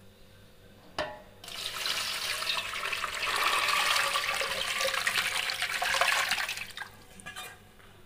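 Water pouring in a stream into a metal pot over a ball of kneaded maida dough, to submerge it for soaking. A single knock about a second in, then the pour starts about a second and a half in and runs for about five seconds before stopping.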